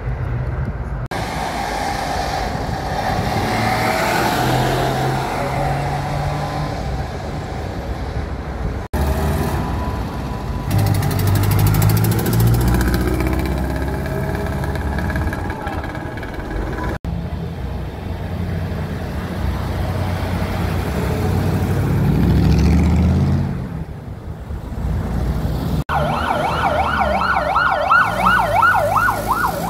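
Vintage cars driving past one after another, their engines running over road noise. In the last few seconds an old yellow Volga police car's siren sounds, a fast warbling wail.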